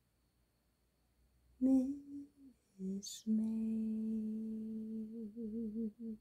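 A person humming a slow tune: a couple of short notes, then one long held note that wavers near the end. A brief sharp click comes about three seconds in.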